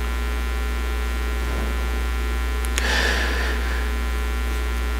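Steady electrical mains hum, low and buzzy, with a brief faint rustle about three seconds in.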